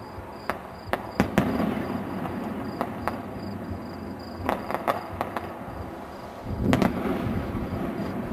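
Fireworks display: sharp bangs of shells bursting at irregular moments over a steady rumble, in clusters about a second in, around four and a half seconds in and near seven seconds in, the loudest about a second in and near seven seconds in.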